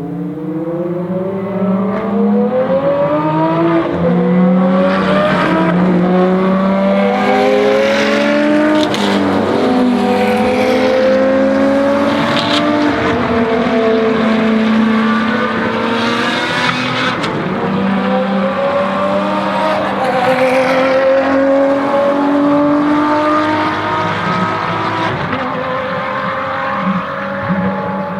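Ferrari FXX Evoluzione's V12 racing engine running at changing revs, its pitch climbing and falling again and again over a steady lower drone.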